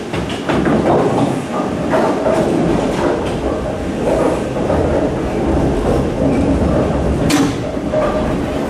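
Bowling alley machinery, the pinsetter and the ball return under the lane, running with a steady rolling rumble as the ball travels back to the return. A sharp clack comes about seven seconds in.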